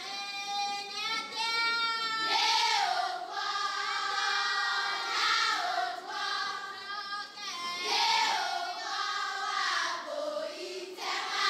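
A group of high voices singing together, with long held notes that slide up and down in pitch.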